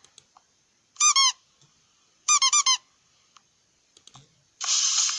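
A phone notification tone played from the phone's speaker: one short, high-pitched chirp, then four quick chirps in a row. Near the end a louder, noisy sound starts, the beginning of the next tone.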